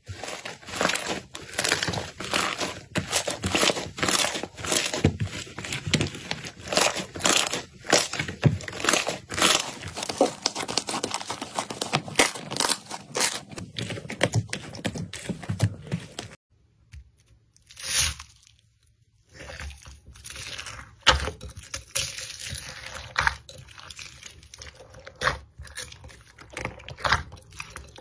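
Bubbly slime being stretched, pulled and squeezed by hand, giving off dense sticky crackling and popping as air bubbles burst. About two-thirds of the way through there is a short pause, and after it the crackles and pops come more sparsely.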